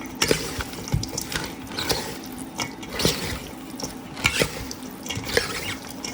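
Irregular wet clicks and squishes of cubed raw sockeye salmon with sesame oil being worked in a bowl.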